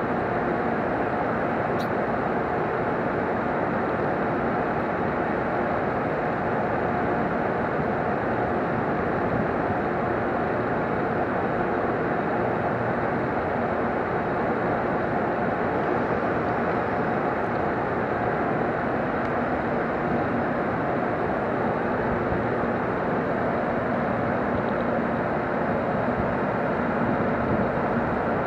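Steady whirring hum of a JR Kyushu 787 series electric train standing at the platform with its onboard equipment running, even in level throughout.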